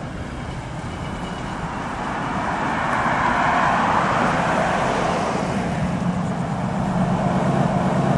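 Road traffic: vehicles driving past, their tyre and engine noise swelling to a peak about halfway through, followed by a lower engine hum as another vehicle goes by.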